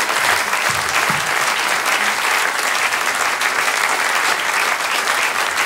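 Audience applauding steadily at the end of a live band's song: a dense, even clapping.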